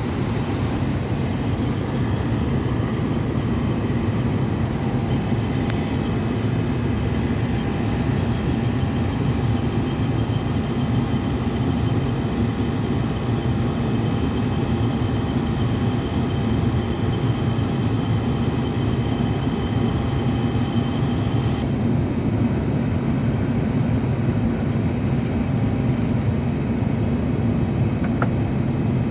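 Steady, loud, low machinery drone with no break; some fainter high steady tones above it stop about two-thirds of the way through.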